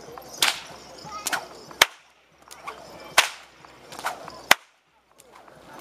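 A whip cracking repeatedly: about six sharp, separate cracks, the loudest two about two seconds in and about four and a half seconds in.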